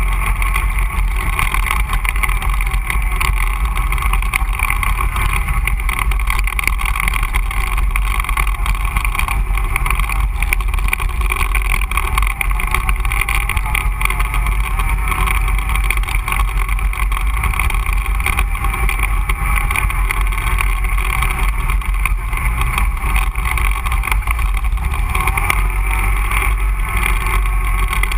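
Can-Am Renegade 500 ATV's single-cylinder four-stroke engine running under way on a dirt trail, its revs rising and falling slightly, over a steady low rumble.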